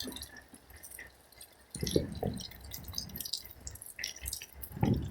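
Rain dripping: scattered drops ticking throughout, with two low, muffled thumps about two seconds in and near the end.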